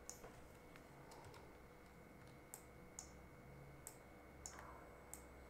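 Faint computer mouse clicks, about half a dozen at uneven intervals, over a faint steady electrical hum.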